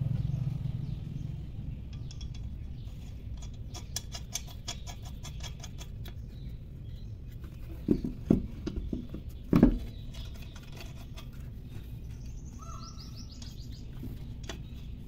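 Small birds chirping in the background, with a short fast trill near the end. About eight to ten seconds in there are three or four dull knocks, the loudest sounds here.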